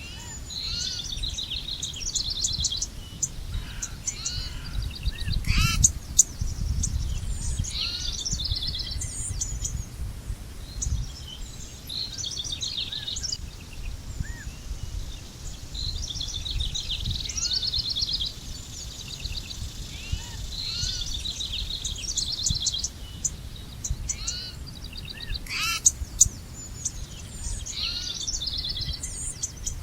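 Several songbirds singing and chirping, with quick trills and short repeated phrases coming one after another, over a steady low rumble.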